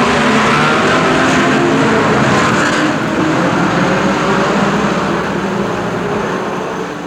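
Sixteen 1967 Formula One cars, a mix of V8 and V12 racing engines, revving hard together as they accelerate away from the starting grid, many engine notes overlapping. The sound fades away over the last couple of seconds.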